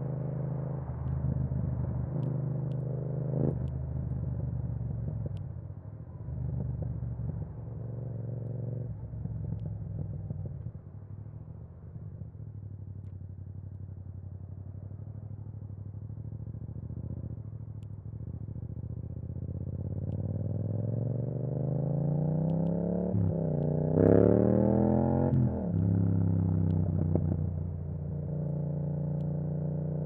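Yamaha MT-07's parallel-twin engine through an Akrapovic exhaust with the dB killer removed, heard from on the bike while riding. It runs at a steady pace with short throttle blips, eases off in the middle, then climbs in pitch through a gear change about two-thirds of the way in and drops back as the throttle closes, settling to a steady run near the end.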